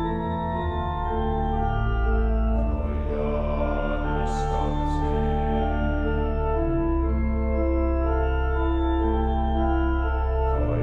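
Background music of slow, held organ chords that change every second or two, with two brief high swishes about four and five seconds in.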